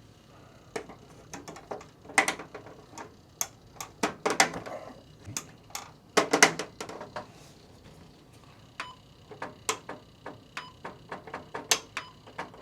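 Irregular clicks and knocks of hard plastic as the buttons and CD compartment cover of a vintage Kenwood all-in-one stereo are pressed and handled, with a few louder knocks among them.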